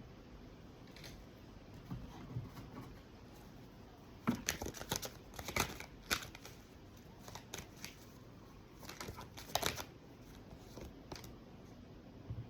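Tarot cards being handled and laid out: soft, scattered card snaps and rustles, with a few short clusters of clicks.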